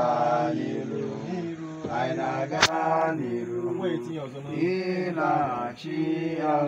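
Several men's voices chanting together in long held, sung phrases. A single sharp click a little over two and a half seconds in.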